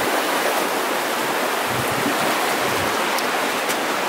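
The Virgin River rushing steadily through the canyon, a constant dense water roar. A few dull low thumps come around the middle.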